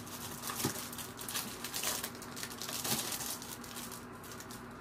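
Shrink-wrap plastic and paper crinkling and rustling as items are handled and lifted out of a cardboard box, with a couple of soft knocks.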